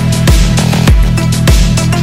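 Electronic background music with heavy bass and a steady, driving beat.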